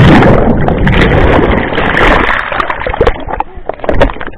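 Loud rushing and splashing of seawater as a rider and the camera plunge off a towed banana boat into the sea, thinning after about two and a half seconds into gurgling with scattered knocks.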